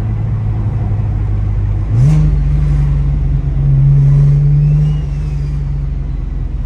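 Single-turbo BMW N54 straight-six running steadily; about two seconds in, the revs rise quickly and are held higher for a few seconds, loudest just past the middle, then settle back down near the end.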